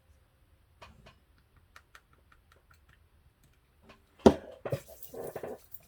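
Small scattered clicks and taps of cosmetic packaging being handled, then a louder knock about four seconds in followed by a moment of rustling.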